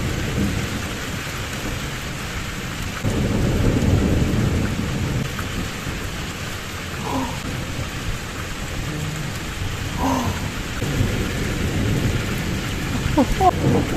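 Heavy downpour of rain during a strong thunderstorm, with rolling thunder: a loud low rumble of thunder about three seconds in and a weaker one near the end.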